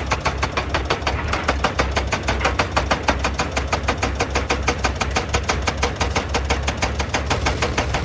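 Excavator at work: a rapid, even hammering of about seven strokes a second over the steady low drone of its diesel engine.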